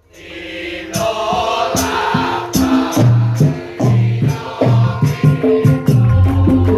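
Javanese gamelan ensemble playing, led by the bonang's bronze kettle gongs. Struck notes ring on and follow each other more and more closely, with deeper notes joining about three seconds in.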